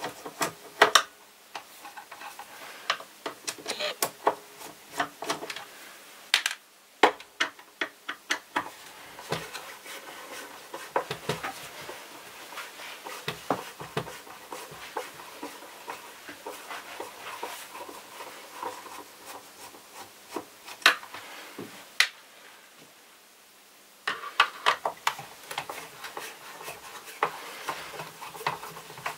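Irregular clicks, knocks and rubbing of a screwdriver and hands working on the plastic underside of a Vorwerk VR100 robot vacuum as it is taken apart, with a quiet pause of about two seconds late on.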